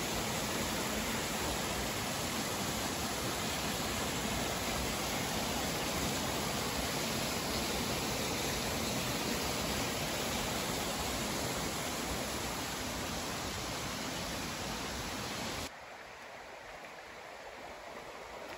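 Small woodland waterfall and the little cascades below it splashing over rocks: a steady, even rushing of water. Near the end it drops suddenly to a quieter rush.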